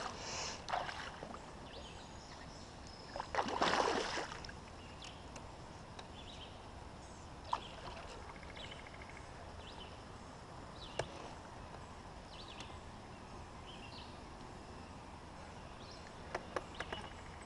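Canoe on the water: the paddle dipping and water sloshing against the hull, with a louder rush of water about three and a half seconds in. Two sharp knocks come later, several seconds apart.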